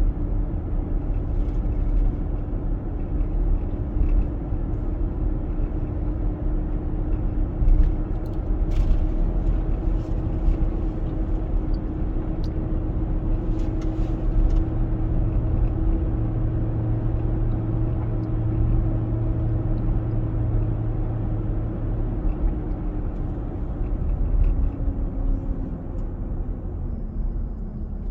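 2021 Nissan Armada's 5.6-litre V8 running with a heavy low rumble and a steady droning tone that drops in pitch near the end. This is the loud engine noise the owner is showing.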